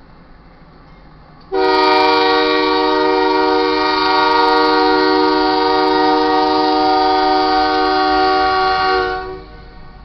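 Air horn of a Union Pacific GE AC4400CW diesel locomotive blowing one long blast, several notes sounding together as a chord, as the train reaches a road grade crossing. The blast starts about a second and a half in and cuts off about a second before the end. It is heard from inside a stopped car's cabin.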